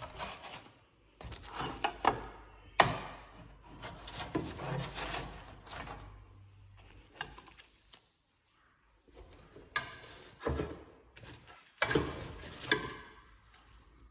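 Kitchen handling sounds of hot baked pasties being moved onto a tray: irregular scraping and rustling with a few sharp knocks of a utensil or tray, and a short pause partway through.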